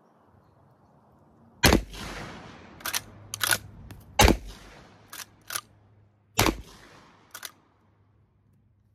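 Three shots from a Winchester Model 1901 10-gauge lever-action shotgun firing mild handloaded shells, about two and a half and then two seconds apart. Each shot is followed by a quick double clack of the lever being worked to eject the spent shell and feed the next.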